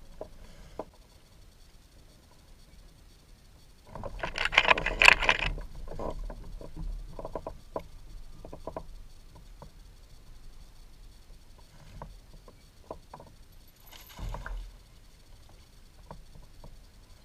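Handling noises on a fishing kayak: a loud, clattering burst about four seconds in, then scattered light clicks and knocks, and a shorter burst near the end.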